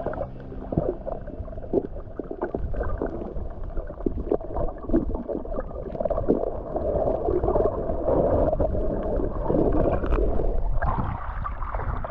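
Muffled underwater noise: water rushing and gurgling around a submerged camera, with scattered clicks, growing louder and denser about halfway through.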